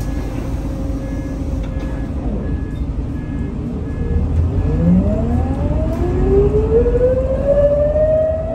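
Scania L94UB city bus heard from inside the passenger cabin, its engine rumbling steadily under way. From about halfway it grows louder as the bus accelerates, and a whine rises steadily in pitch.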